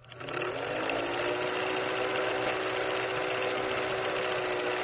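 Film projector sound effect: a fast, steady mechanical clatter over a whirring hum that rises in pitch as it starts, beginning and ending with a click.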